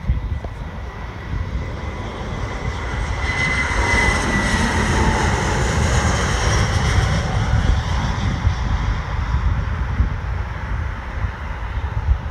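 Airbus A320 jet flying low overhead on final approach. The engine noise swells to a peak a few seconds in, with a high whine that drops slightly in pitch as it passes, then eases to a steadier rumble.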